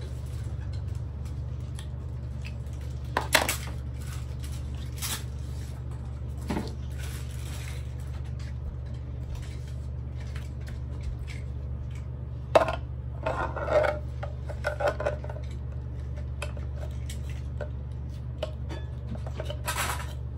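Toy kitchen pots, pans and utensils being handled during pretend cooking: scattered clicks, knocks and clatters, busiest about two-thirds of the way through, over a steady low hum.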